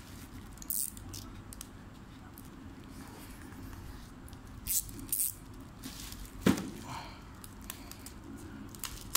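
Plastic mailer bag rustling and crinkling as it is handled, in short scattered bursts, with one sharp click about two-thirds of the way through.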